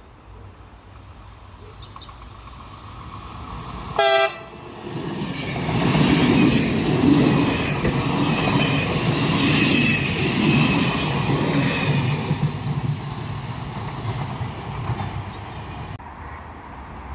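Electric multiple unit passing close by: one short horn blast about four seconds in, then its running noise builds, stays loud for several seconds and fades away. The sound changes abruptly near the end.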